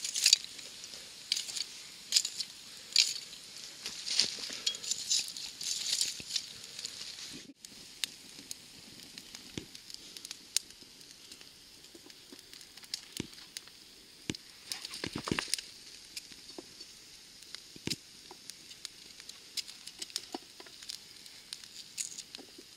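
Wood campfire crackling and popping while metal tongs rake glowing embers. After a sudden cut it turns much quieter, with sparse clicks of a knife slicing carrot rounds that drop into an aluminium pot.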